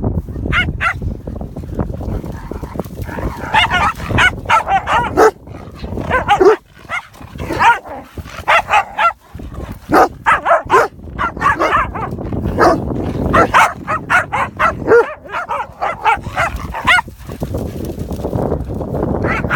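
Dogs barking and yipping during rough play, in quick runs of short, high-pitched barks with brief pauses between runs. Wind rumbles on the microphone at the start and again near the end.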